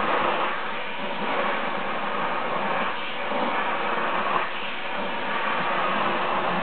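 Vacuum cleaner running steadily, its nozzle drawn over a cat's fur, the hiss swelling and easing a little as it moves.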